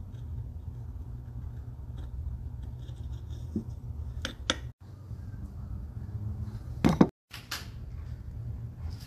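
A small metal wick-setting tool clicking against a ceramic candle vessel as stick-on wick tabs are pressed down, with a louder knock near the end. A steady low hum runs underneath.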